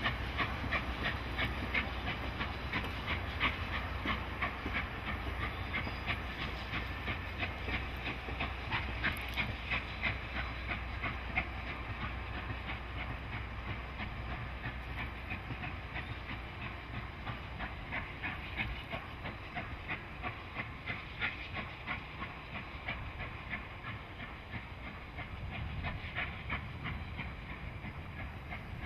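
Canadian Pacific 2816, a 4-6-4 Hudson steam locomotive, running past with its train: steam hissing over a steady clicking of wheels on the rails. A low rumble under it weakens after about twenty seconds.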